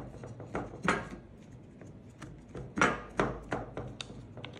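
Irregular clicks and knocks of a screwdriver turning out a screw from the AR-6 Stinger II crossbow's side plate, with the plastic frame being handled; the sharpest knocks come about a second in and twice near three seconds in.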